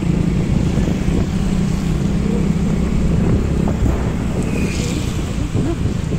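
A vehicle's engine running while moving, with wind buffeting the microphone: a steady low rumble and a brief higher hiss about four and a half seconds in.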